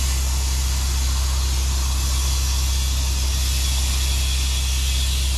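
Steady hiss of compressed air from the truck's air line rushing into a tubeless trailer tire whose bead has not yet seated. Underneath is the steady low hum of the idling truck engine.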